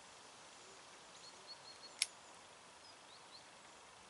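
Quiet outdoor background with a few short, faint bird chirps and one sharp click about two seconds in.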